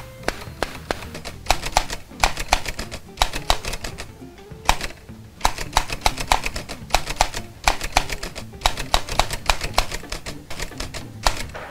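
Manual typewriter keys clacking in fast, irregular runs, with a short pause about four seconds in, over background music.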